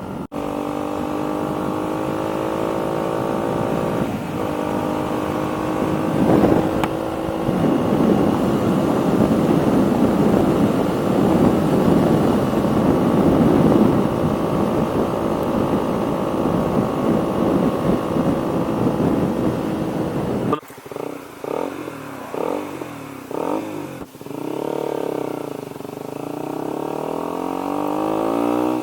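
KTM Duke 125 single-cylinder engine running through an aftermarket full exhaust system with the dB killer fitted, held at a steady cruise under wind rumble on the helmet microphone. About two-thirds of the way through the rumble drops away suddenly and the engine note pulses on and off the throttle for a few seconds, then rises in pitch as the bike accelerates.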